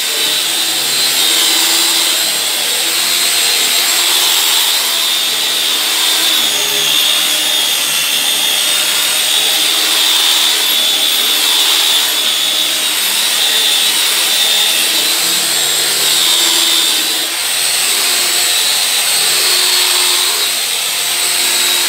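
Electric rotary polisher with a foam pad running steadily while buffing a car's painted door panel, its motor giving a steady high whine.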